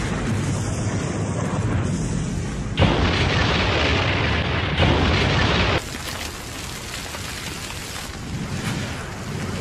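Explosion sound effect from an animated fire-magic blast: a continuous rumbling roar that surges louder about three seconds in, then falls back to a lower rumble about six seconds in.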